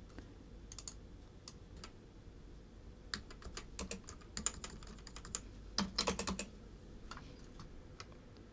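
Faint computer keyboard typing: a few scattered single keystrokes, then two quick runs of keystrokes around the middle, the second slightly louder.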